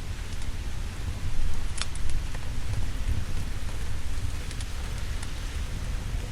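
Steady heavy rain with a deep low rumble underneath, and a few sharp, scattered pops from a crackling fire, the loudest about two seconds in.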